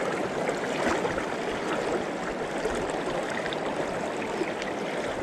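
Steady rush of flowing river current.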